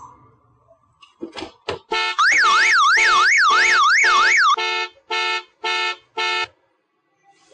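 A few quick knocks, then a car alarm goes off: a loud siren warbling rapidly up and down, about three sweeps a second, for a couple of seconds, then four short beeps about half a second apart.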